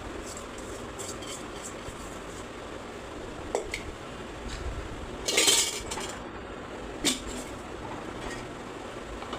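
Kitchen utensils clinking and scraping against pots and dishes: a sharp knock about three and a half seconds in, a louder scraping clatter around five and a half seconds, and another knock near seven seconds.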